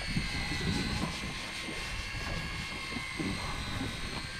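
Electric deep-drop fishing reels whining steadily as they winch lines and fish up from depth, several tones drifting slightly in pitch.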